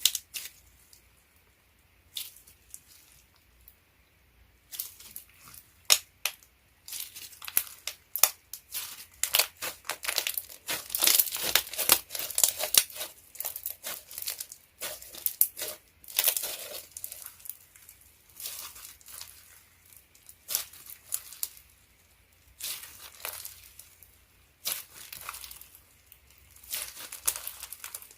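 Slime being handled, stretched and squeezed by hand: irregular sticky crackles and small pops, sparse at first, then coming thick and fast through the middle before thinning out again.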